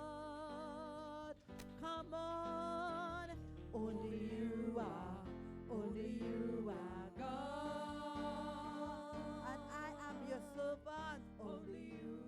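Worship music: a sung melody with a wavering, held voice over guitar accompaniment and a steady bass.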